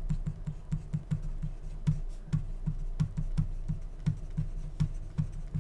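Pen writing on paper laid on a wooden desk: a quick run of scratchy strokes and taps, several a second, each with a soft low knock through the desk.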